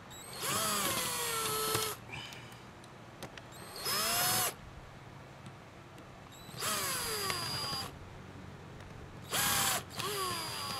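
Cordless drill driving small screws into an outboard carburetor's cover in four short runs. Each run speeds up and then drops in pitch as the screw is lightly run in.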